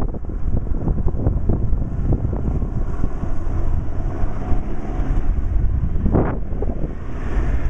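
Wind buffeting the microphone over the steady low rumble of a tour helicopter.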